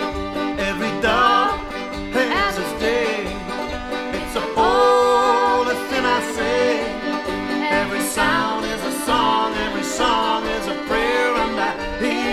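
Instrumental break of an acoustic folk song: a fiddle plays the lead melody with slides and ornaments over held accordion chords and a steady low beat.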